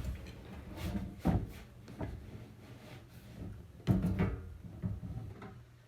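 Handling noise while mixing slime: a series of short knocks and rubbing sounds over a low steady hum.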